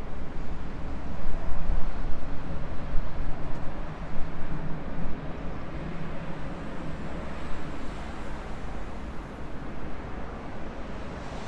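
A passing train's rumble, loud at first and then fading away as it recedes, with wind buffeting the microphone.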